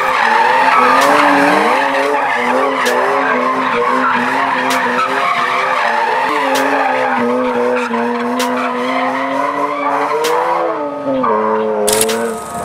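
Car engine held at high revs while tyres squeal in a long skid, as in street drifting or a burnout. The engine note wavers, climbs briefly near the end, then drops away.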